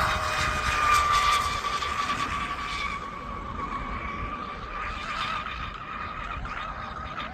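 Electric RC rigger boat screaming along at speed: a high, steady motor whine, loudest about a second in, then fading and dropping slightly in pitch as the boat runs away.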